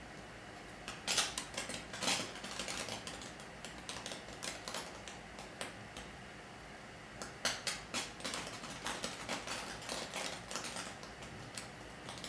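Sparks crackling in quick, irregular pops and ticks, in two busy clusters: one starting about a second in, the other from about seven seconds.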